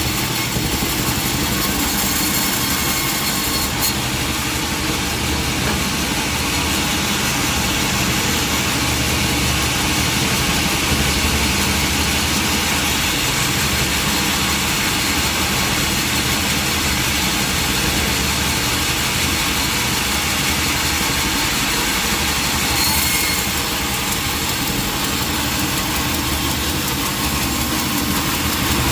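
Sawmill machinery running steadily, an engine drone under a constant hiss, with a single short click about four seconds in.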